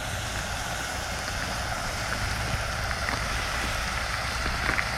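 Chopped onion, celery, bell pepper and garlic sizzling in butter in a pot, a steady hiss with a low steady rumble underneath.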